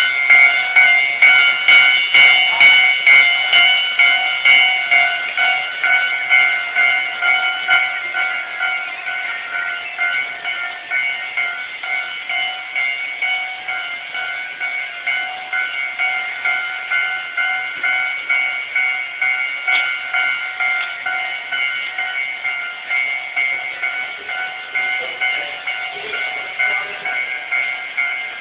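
Japanese railway level-crossing alarm ringing, a steady clanging tone repeating about twice a second, slowly getting quieter.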